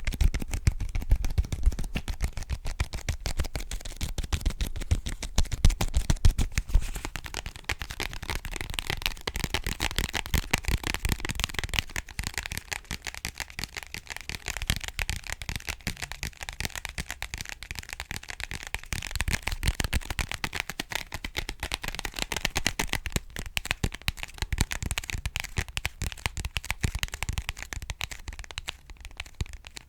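Fast, dense fingertip and fingernail tapping on objects, with heavier thuds mixed in for the first several seconds, then lighter and crisper for the rest.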